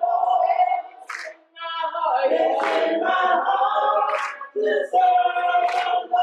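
Mixed gospel choir of men and women singing a cappella, with hand claps on the beat about every second and a half.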